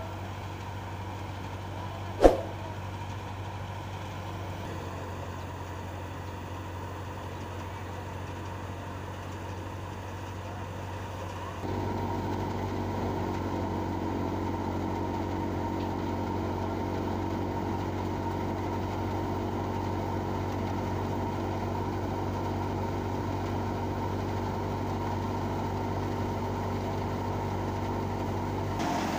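Tractor-driven thresher running steadily, the diesel engine and the threshing drum and belts making a continuous hum. A single sharp click about two seconds in; about twelve seconds in the sound becomes suddenly louder and fuller as the machine is heard from close by.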